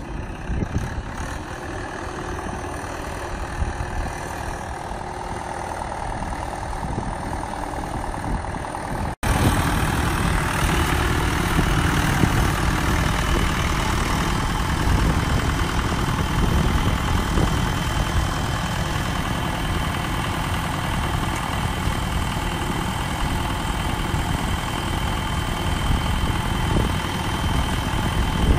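Mahindra 595 DI Turbo tractor's four-cylinder turbocharged diesel engine running steadily under load while it works a rear tillage implement through flooded paddy mud. A brief cut about a third of the way in, after which it is louder.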